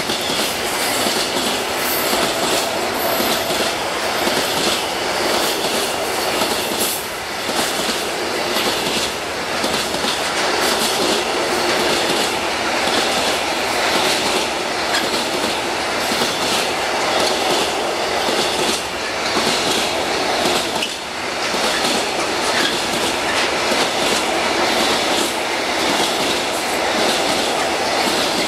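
Freight train's container wagons rolling past at close range: a steady rumble of steel wheels on the rails, with a continuous clickety-clack of wheels over the track.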